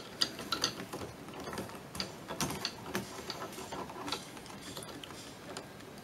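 A small electrical plug being worked loose from its socket by hand: irregular small clicks, rattles and scrapes of its latch and housing.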